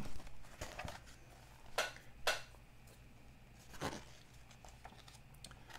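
Pages of a glossy paper magazine being turned by hand: several short paper swishes and rustles, the loudest two about two seconds in and another near four seconds.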